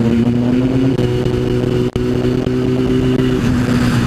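Suzuki Bandit 600 motorcycle's inline-four engine running at steady cruising revs, heard from a helmet-mounted microphone. The pitch shifts slightly a couple of times. The recording cuts out briefly about halfway through.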